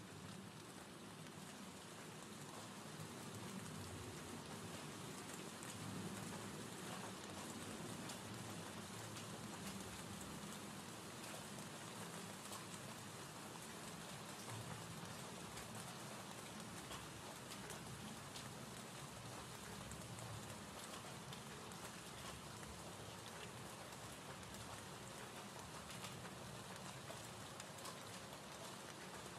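Recorded gentle-rain ambience: a faint, steady hiss of falling rain, flecked with small drop sounds.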